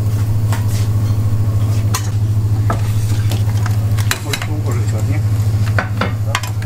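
A metal utensil scrapes and clinks against a wok and a plate as stir-fried noodles and sauced seafood are served, with scattered sharp clinks. Under it runs a steady low hum from kitchen equipment.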